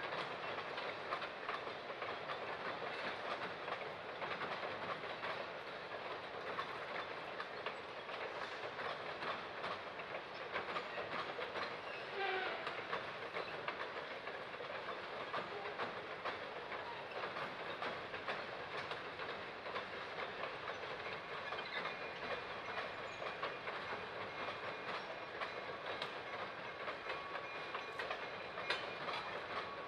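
Passenger train cars rolling steadily across a steel bridge, their wheels clicking over the rail joints.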